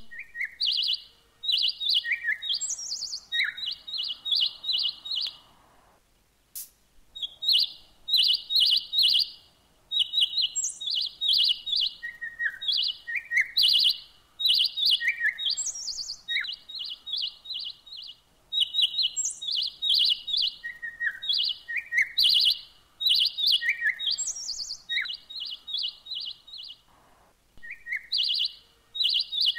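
A songbird singing: phrases of rapid, high chirps mixed with short sliding notes, repeated again and again with brief pauses between them.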